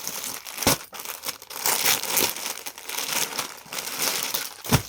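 Crinkling and rustling as suits are pulled out and handled, with two knocks, one a little under a second in and a louder one near the end.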